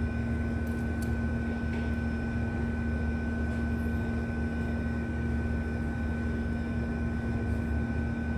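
Steady mechanical hum with a low rumble, a constant low tone and a thin high whine above it, unchanging throughout.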